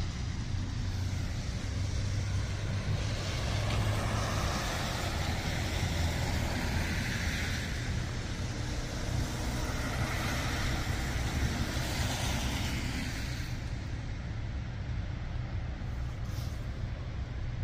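Cars passing on a snowy city street: tyre hiss swells and fades about three times over a steady low rumble.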